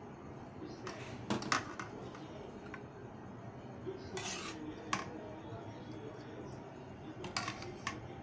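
A metal serving spoon clinking and scraping against a steel pot and serving bowl as thick curry is spooned out. There are a few sharp clinks and a short scrape about four seconds in.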